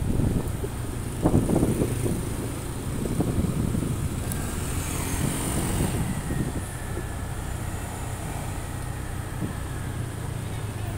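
Motorbike and scooter traffic on a street, a steady low engine rumble with passing bikes.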